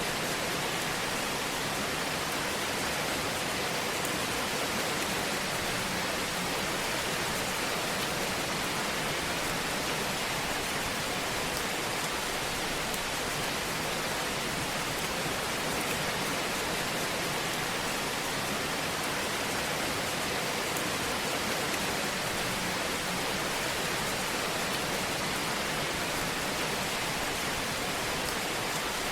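Fire burning in a fireplace: a steady, even hiss with a few faint crackles.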